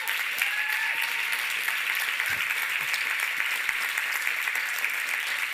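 Audience applauding, with a couple of whoops in the first second.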